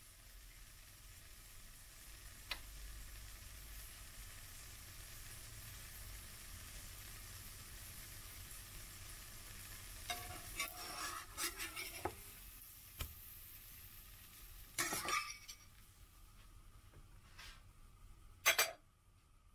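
Pancake frying in a pan of browned fat, a faint steady sizzle that dies away in the later part. A metal slotted spatula scrapes and taps against the pan about ten seconds in and again near fifteen seconds, and a sharp knock comes near the end.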